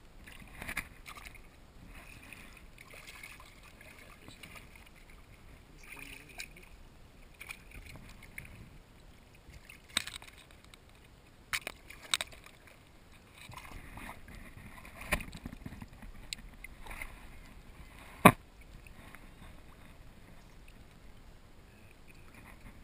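Water splashing at the side of a kayak as a hooked redfish is hand-lined to the hull and grabbed by hand, with scattered sharp knocks, the loudest about three-quarters of the way through.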